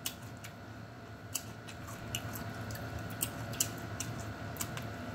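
Close-miked chewing of raw seasoned celery: scattered, irregular crisp clicks and snaps over a faint steady low hum.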